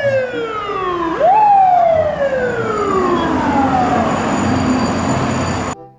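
Fire truck siren: a falling wail that winds back up quickly about a second in, then slides slowly down in pitch again for several seconds, before being cut off abruptly near the end.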